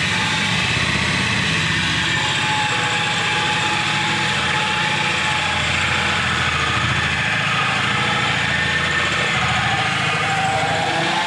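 Cordless drill running with a hole saw, cutting a round hole up into a drywall ceiling: a steady motor whine over the grinding of the saw, sagging slightly lower in pitch near the end.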